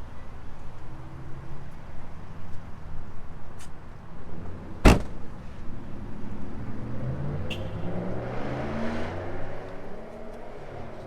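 2020 Hyundai Sonata's 1.6-litre turbocharged four-cylinder running, with one sharp knock about five seconds in. A few seconds later the engine note rises as it speeds up.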